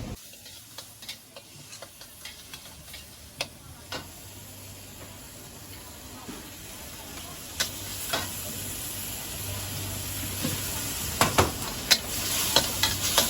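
Food stir-frying in a wok: a steady sizzle with scattered clinks and scrapes of a metal spatula. The sizzle and the spatula strikes grow louder and quicker near the end.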